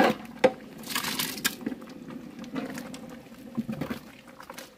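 Cooked chickpeas tipped from a pan into a big pot of thick herb soup, with a wet splash about a second in, then a metal utensil stirring the soup with a few light clicks and knocks.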